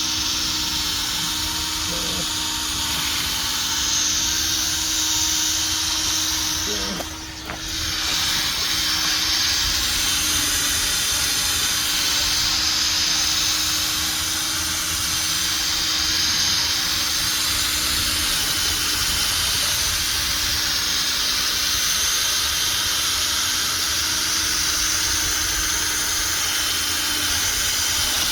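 Power sander running steadily, with 800-grit sandpaper hissing across a plastic headlight lens during a restoration. The sound briefly drops away about seven seconds in.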